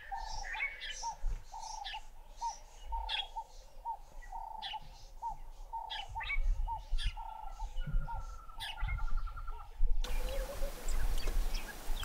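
Small birds calling together: a run of short repeated notes, about three a second, under scattered higher chirps. About ten seconds in the sound changes abruptly to a fainter hiss with a few thin chirps.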